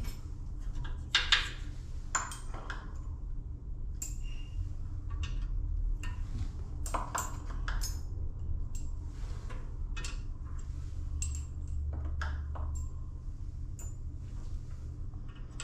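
Metal valve-seat cutter pilots clinking and pinging against each other and the rack as they are picked out and tried for a tight fit in the valve guide: scattered sharp clinks, the loudest about a second in, over a low steady hum.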